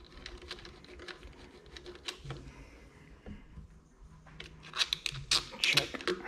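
Light clicks and scrapes of a screwdriver turning bolts into a plastic air-intake adapter plate on a gas blower. About four and a half seconds in come a quick run of louder clicks as small metal parts are handled.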